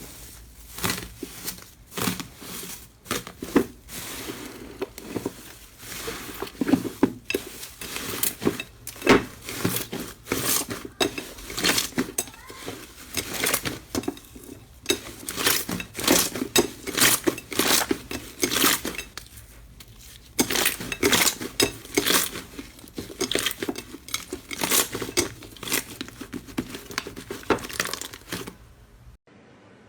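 Slime being squeezed and kneaded by hand, giving dense runs of small crackling pops and clicks, with a short pause about two-thirds of the way through.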